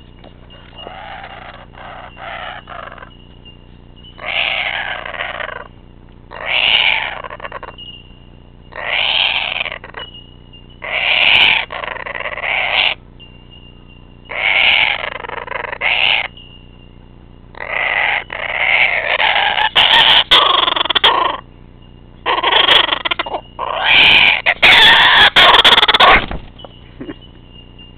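Kookaburra calling in loud bursts of a second or so, about every two to three seconds, the calls growing longer and louder in the second half. A faint steady high tone sounds between the calls.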